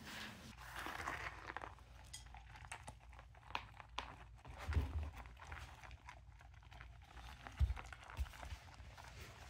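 Large-breed puppy eating dry kibble off a tatami floor: a run of small crunches and clicks as it picks up and chews the pellets, with two louder dull thumps about five seconds in and near eight seconds in.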